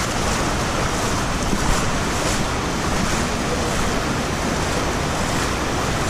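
Fast-flowing Mujib River water rushing and churning over rocks: a steady, unbroken rushing noise.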